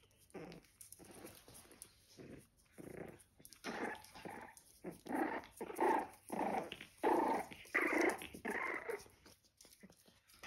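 Month-old puppies growling as they play-fight, a string of short puppy growls that get louder from about halfway through.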